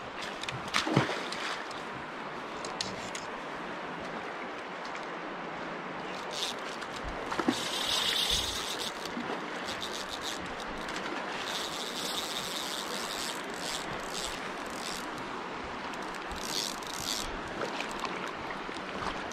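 Steady rush of flowing river water, with a few short, sharper bursts of higher-pitched sound about a third of the way in, past the middle and near the end.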